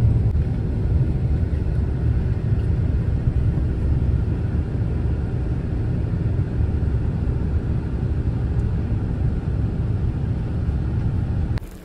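Steady low road and engine rumble of a vehicle driving along, heard from inside the vehicle. It drops away abruptly near the end.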